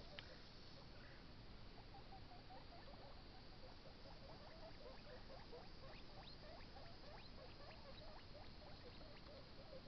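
Baby guinea pig chewing a carrot: faint, quick crunchy clicks of nibbling, growing thicker from about halfway in.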